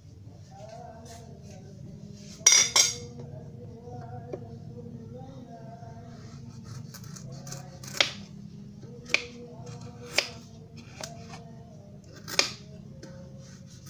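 Kitchen knife peeling the skin off a squash in strips over a wooden cutting board: short, sharp cutting scrapes through the rind. There is a quick double stroke a couple of seconds in, then four more single strokes spaced a second or more apart.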